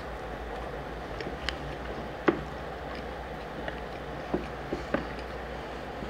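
Steady hiss of a heavy downpour of rain in the background, with a few sharp clicks and smacks of eating, the loudest a little over two seconds in.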